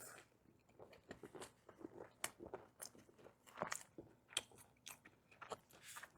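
Close-miked chewing and biting into beef short ribs: irregular wet mouth clicks and small crunches, several a second.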